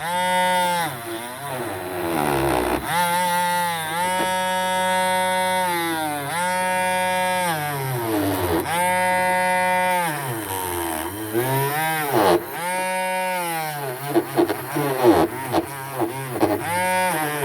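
Small variable-speed rotary tool brushing corrosion off die-cast alloy: a steady whine that sags in pitch each time it is pressed onto the metal and picks back up when eased off, every couple of seconds.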